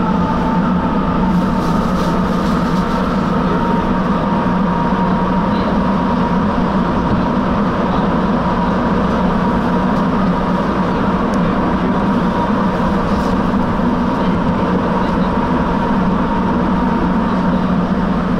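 Rubber-tyred Sapporo subway train running at steady speed through the tunnel, heard from inside the car: an even, loud rumble of tyres and running gear with a thin steady tone above it.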